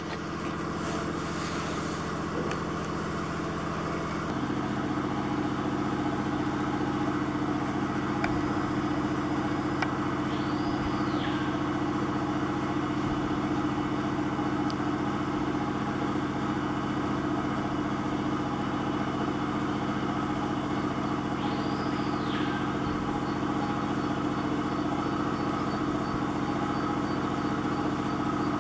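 A motor running steadily with a low, even hum that shifts pitch about four seconds in. Twice, a brief high call rises and falls in pitch over the hum.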